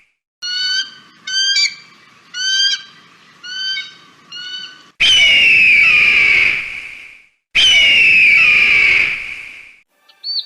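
Captive birds squawking: five short, sharp squawks, then two long, loud, harsh screeches of about two seconds each, their pitch sagging slightly.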